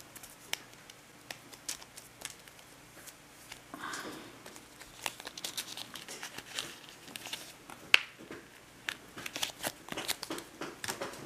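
Thin clear plastic coin sleeve crinkling and crackling in irregular sharp bursts as fingers work a coin out of it, with one sharper crackle about eight seconds in.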